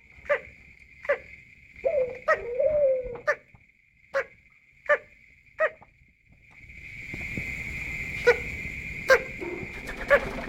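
A bird giving short, sharp cough-like calls, roughly one every three-quarters of a second, with a brief warbling, laugh-like call about two seconds in. A steady high whine runs underneath, and a rushing noise swells in the second half.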